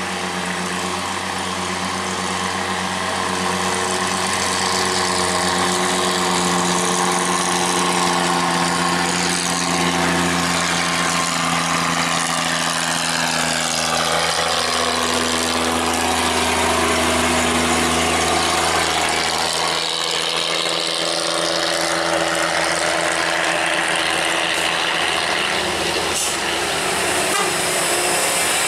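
Heavy diesel trucks running slowly past one after another, a steady engine drone whose pitch shifts slowly as they pass.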